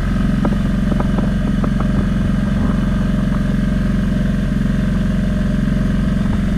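An engine running steadily at a constant speed, with a few light clicks in the first two seconds.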